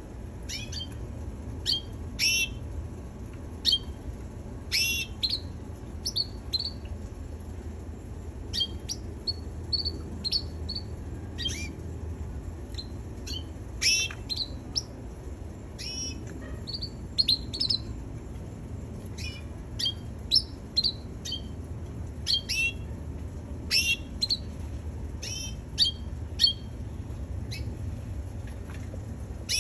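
Canary giving short, separate chirps at irregular intervals, over a steady low hum.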